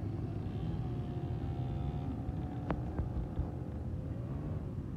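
Quad bike (ATV) engines running, a steady low rumble with a wavering engine tone for a second or so. Two sharp clicks come close together about three seconds in.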